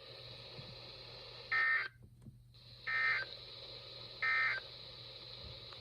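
NOAA Weather Radio end-of-message signal: three short bursts of SAME digital data tones, each about a third of a second and about a second and a half apart, marking the end of the alert broadcast. A steady receiver hiss runs underneath and drops out briefly after the first burst.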